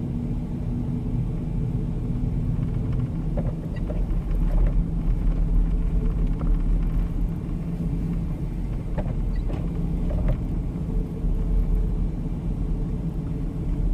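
Steady low rumble of a four-wheel-drive vehicle's engine and tyres, heard from inside the cab while it drives slowly on a snow-covered road, with a few faint clicks.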